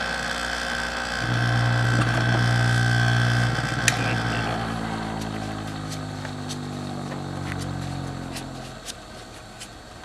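Electric motor of a Twice as Sharp sharpener running with a steady hum after the grinding stops, dying away about nine seconds in, with a few light clicks from handling the blade and clamp.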